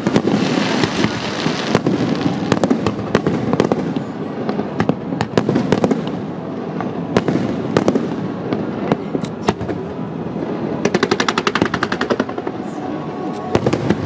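Fireworks display: a steady run of bangs and shell bursts over a constant low rumble, with a rapid rattling volley of reports about eleven seconds in lasting just over a second.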